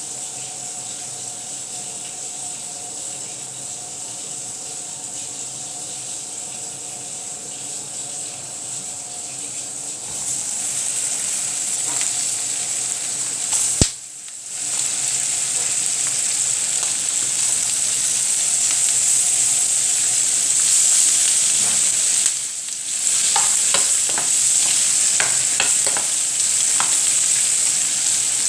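Food frying in oil in a pan for an egg-and-vegetable omelette, a steady sizzle that gets louder about ten seconds in. A sharp click and a brief drop come about halfway through, then the sizzling goes on with scattered short ticks near the end.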